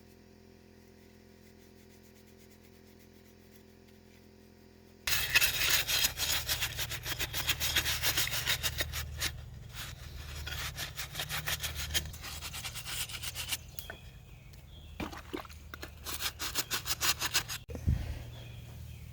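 A stiff brush scrubbing rapidly back and forth over a hard part. It starts suddenly about five seconds in, after a faint hum, and there is a single thump near the end.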